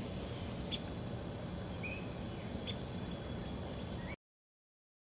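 Short sharp bird chirps, one about every two seconds, over a steady high-pitched insect drone and a low rumble. The sound cuts off abruptly about four seconds in, leaving silence.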